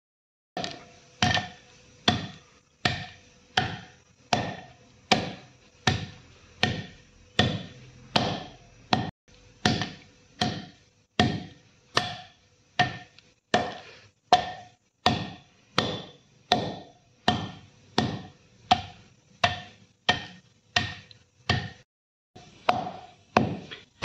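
Wooden pestle pounding dry liquorice root sticks in a stone mortar (kundi-danda), crushing the woody root: a steady rhythm of knocks, about three every two seconds, with a brief pause near the end.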